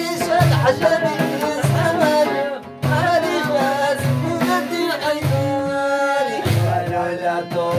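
Live folk music: a violin bowed upright on the player's knee plays a wavering melody over a drum beat about once a second, with singing. After about five seconds the violin holds one long note, then the melody moves on.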